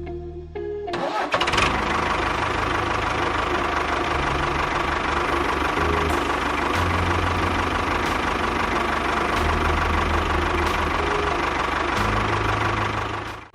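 An engine starts up about a second in and runs steadily with a low throb, then cuts off abruptly at the end.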